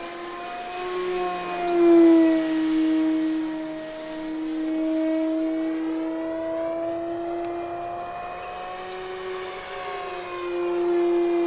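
E-flite Commander mPd electric RC airplane in flight, its brushless motor and propeller giving a steady whine on a 4S battery. The pitch slides gently up and down, and it gets louder as the plane passes about two seconds in and again near the end.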